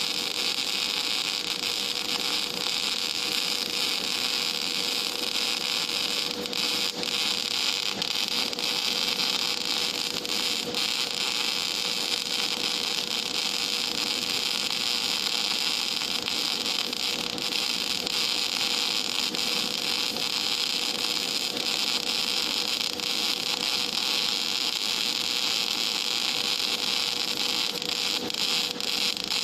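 Gas metal arc (MIG) welding arc running on plate, a steady hiss with fine irregular crackle, held without a break, over a faint steady hum.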